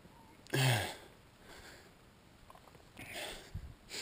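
A man's short sigh with falling pitch about half a second in, then a breathy exhale around three seconds, followed by a soft low thump.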